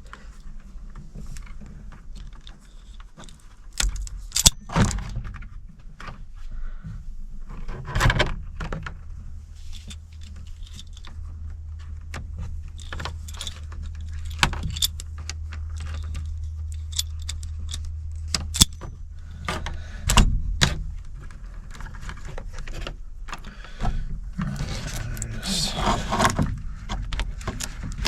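Irregular metallic clinks, clicks and rattles of hand tools and small metal parts being handled during repair work, with a low steady hum for several seconds in the middle.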